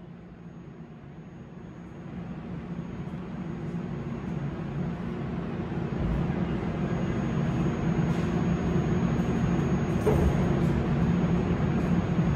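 Stopped R179 subway train at a station platform, its onboard equipment giving a steady low hum that grows gradually louder.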